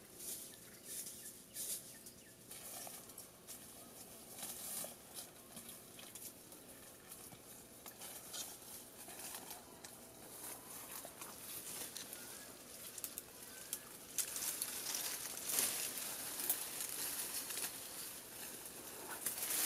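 Dry leaves and twigs rustling and crackling in scattered clicks. It grows louder and denser over the last few seconds as thin bush branches are pulled down and shaken.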